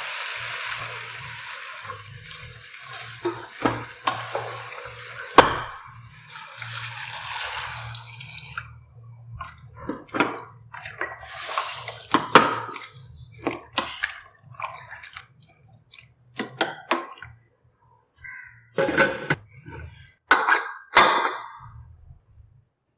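Kitchen cooking sounds: a steady hiss of liquid or frying in a pan twice in the first half, then a string of metal clinks and knocks from utensils against the pot.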